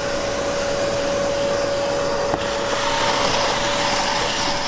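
HEPA vacuum running steadily with a constant whine, its metal wand sucking foamed cleaning agent and decomposition residue up off a car's floor carpet. A second, higher tone joins about three seconds in.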